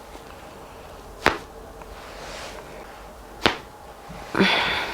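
Two loud, sharp joint cracks from a chiropractic spinal adjustment, about two seconds apart, followed near the end by a short breathy sound.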